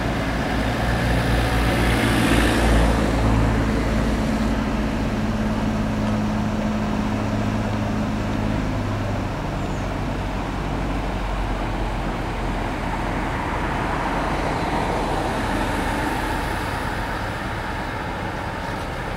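A motor engine running steadily, its low hum fading out about nine seconds in, over a steady outdoor rush of noise.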